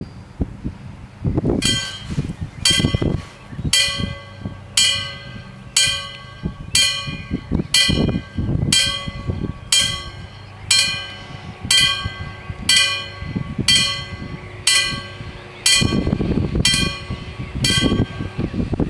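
Level crossing warning bells striking about once a second, each stroke ringing briefly, starting about a second and a half in and stopping just before the end. Irregular low rumbling noise runs underneath.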